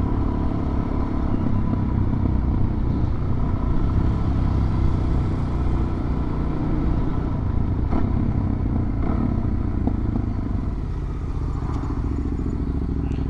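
Suzuki DR-Z400 dual-sport motorcycle's single-cylinder engine running steadily while riding along, with wind rumble on the microphone. The engine eases off slightly near the end.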